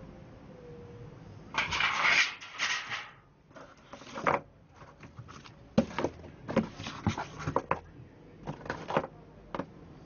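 Hands handling a cardboard box and the resin orgonite pieces in their silicone molds: a burst of rustling about one and a half seconds in, then a string of light knocks and clicks.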